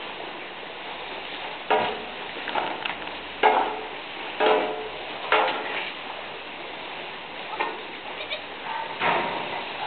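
Goats bleating in short calls, about five in all with a gap in the middle, over a steady background hiss.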